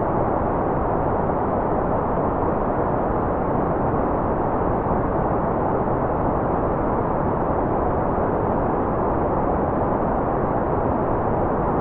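Continuous white noise: a steady, even hiss with no changes in level. It sounds dull and full rather than bright, with its weight in the low and middle range and nothing in the highs.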